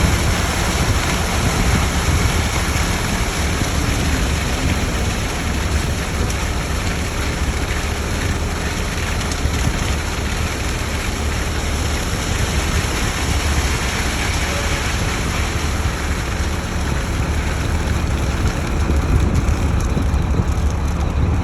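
Diesel engine of a ready-mix concrete truck running steadily during the pour, a constant low-pitched drone under a wide hiss.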